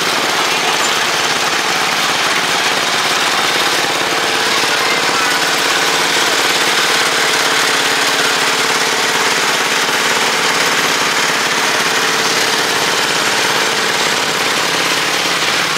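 Small garden and lawn tractor engines running steadily as the tractors drive slowly past in a line.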